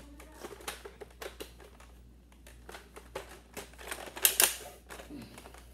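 Plastic clicks and clatter from a Nerf AccuStrike Raptor Strike blaster being handled, with two louder clacks about four seconds in.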